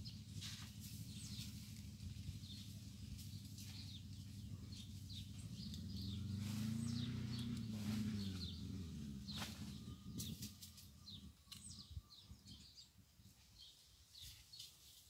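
Outdoor ambience of small birds chirping, with a few sharp clicks, over a low hum that swells around the middle and fades out after about ten seconds.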